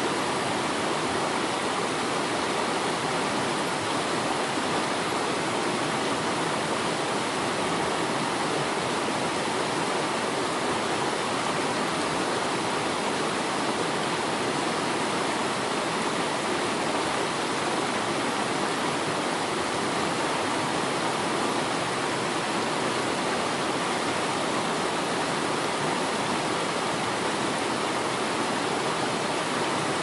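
Waterfall: a steady, even rushing of falling water that does not change in level.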